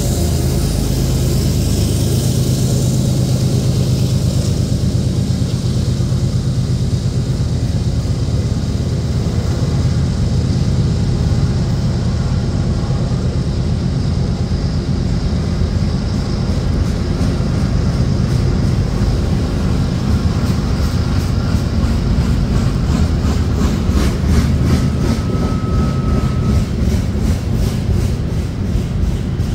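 Freight cars of a loaded CN train rolling past on a grade, covered hoppers and boxcars, with a steady low rumble. A rhythmic clatter of wheels over the rails builds in the second half, and a brief thin squeal comes about two thirds of the way through.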